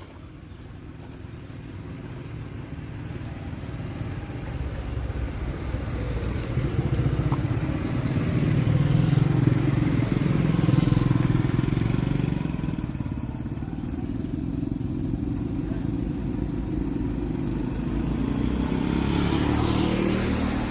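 Motorcycle engine running, growing louder over the first ten seconds and then holding steady.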